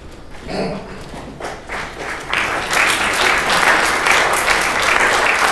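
Audience applauding, building up over the first two seconds and then holding at full strength.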